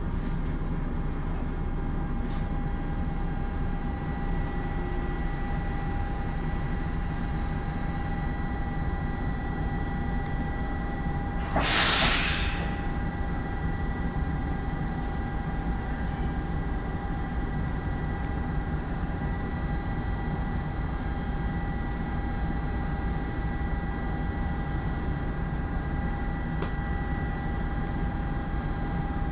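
Tokyo Metro 02 series subway train standing at the platform: a steady rumble with a constant high whine from its on-board equipment. About halfway through, a loud hiss of air released for about a second.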